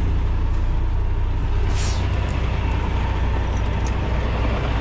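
Semi-truck diesel engine idling steadily with a low rumble. About two seconds in there is a short hiss of air.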